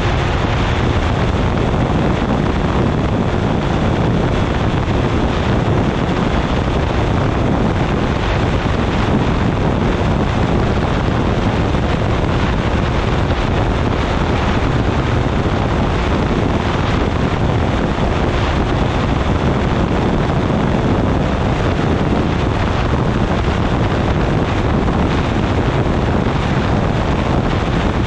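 Steady wind rushing over the microphone of a wing-mounted camera on a weight-shift microlight trike in cruising flight, with the trike's pusher engine and propeller running evenly underneath. The level holds unchanged throughout.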